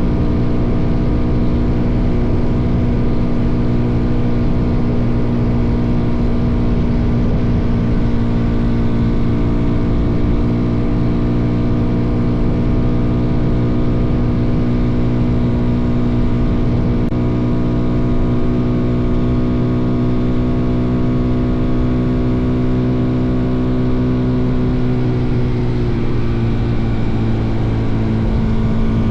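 Suzuki DR-Z400's single-cylinder four-stroke engine running steadily under way, its pitch dipping briefly near the end and then picking back up. Wind rumbles on the microphone underneath.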